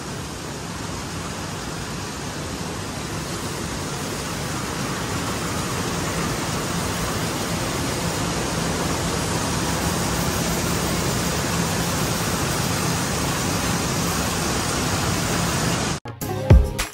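Jute mill processing machinery running: a steady, dense mechanical noise with a low hum underneath, growing a little louder over the first several seconds. It cuts off abruptly near the end.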